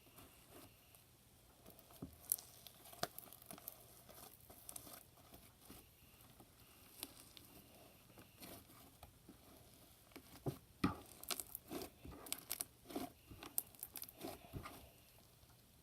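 Clear slime packed with chunky glitter and holographic flakes being kneaded and stretched by hand, giving faint crunching and crackling with scattered clicks. The crackling is busiest in the last few seconds.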